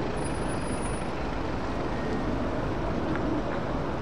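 Steady road traffic noise: vehicles running on a wet road, with no single event standing out.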